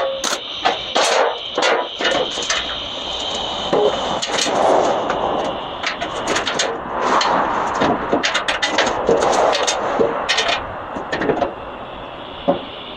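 Irregular metal clanks and knocks of hand work on a truck in a shop, over a steady high-pitched hum.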